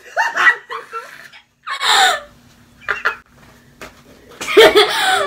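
Girls squealing and laughing in about four short bursts, the longest and loudest near the end, as a plate of whipped cream is pushed into one girl's face.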